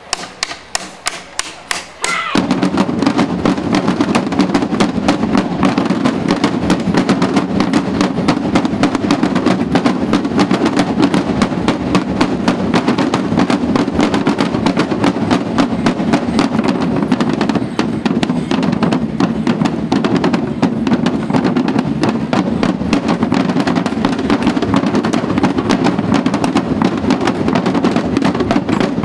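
A street drumming band of snare drums and large bass drums. A few sharp clicks in a count-in, then about two seconds in the whole band comes in together and plays a loud, dense, driving rhythm that keeps going steadily.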